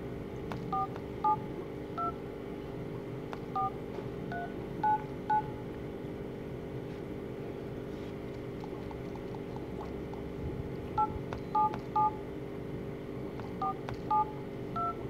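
Samsung Galaxy S2 touchscreen dialer playing short DTMF touch-tones as a phone number is keyed in, one beep per key. The beeps come in quick runs of three or four, with a pause of about five seconds in the middle.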